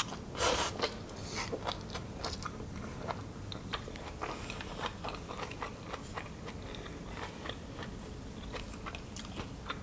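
Close-miked mouth sounds of someone chewing a mouthful of japchae, glass noodles with vegetables: irregular wet clicks and smacks, a little louder just after the start.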